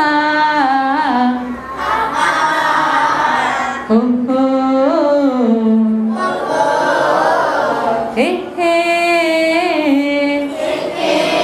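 A woman singing a melody unaccompanied into a hand-held microphone, in several phrases of held notes that slide up and down between pitches, with short breaks between them.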